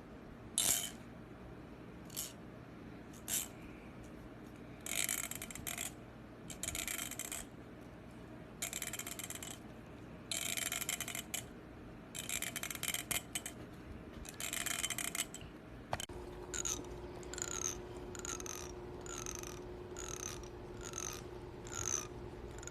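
Teeth of a comb being scraped with a fingernail in short bursts: the sound said to make cats gag. About sixteen seconds in, a different recording starts, with a steady hum and a regular run of short falling strokes, about one and a half a second.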